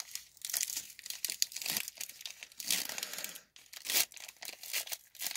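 Foil wrapper of a Pokémon trading-card booster pack crinkling and tearing as it is pulled open by hand: irregular crackles with a sharp snap about four seconds in.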